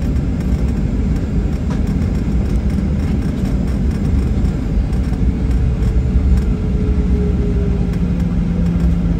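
Steady low rumble of a jet airliner's engines and airframe heard from inside the cabin while the plane taxis after landing. A faint steady hum comes in a little past halfway.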